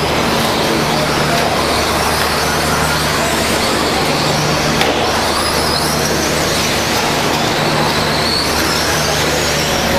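Several radio-controlled stock trucks racing on a dirt track: their motors whine, the pitch rising and falling as they speed up and slow down, over a steady low hum.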